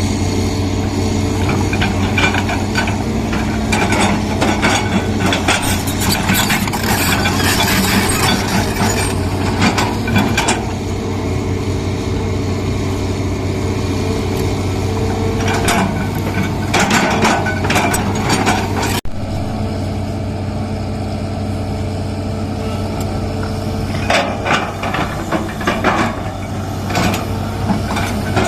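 Hydraulic excavator's diesel engine running steadily, with spells of metallic clanking and scraping as the machine digs out a drainage ditch.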